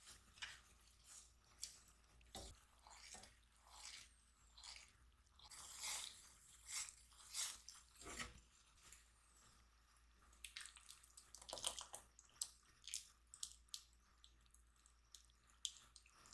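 A silicone spatula stirring milky cream in a copper saucepan: faint, irregular scrapes and soft liquid swishes.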